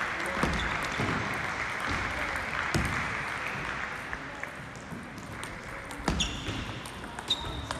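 Hum and murmur of a large sports hall fading over the first few seconds, with scattered sharp clicks of table tennis balls. About six seconds in and again near the end come louder ball clicks, each with a short high ring.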